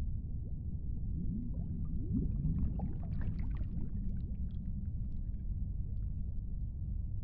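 A steady low rumbling drone. Between about one and five seconds in, a cluster of short gliding calls and scattered clicks rises over it, then fades back into the drone.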